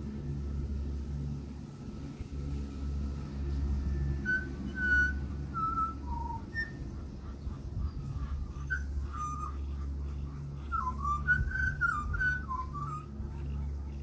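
Pied butcherbird singing clear whistled notes. A few single notes, some gliding, start about four seconds in, followed by a quicker run of warbling, up-and-down phrases. A steady low rumble lies underneath.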